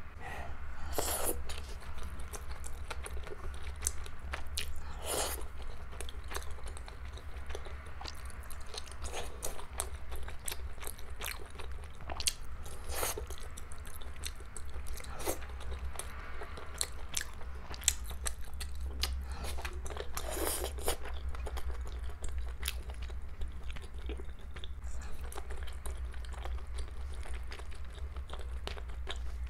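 Close-miked chewing of soft boiled dumplings in a sticky red sauce: many irregular wet mouth clicks and smacks, a few louder, over a steady low hum.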